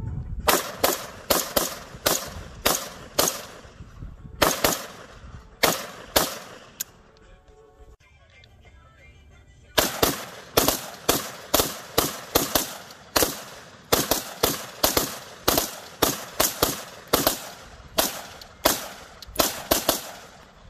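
AR-style rifles firing rapid semi-automatic shots, about three a second, with a pause of a few seconds near the middle. After the pause two rifles fire together in a steady run of shots.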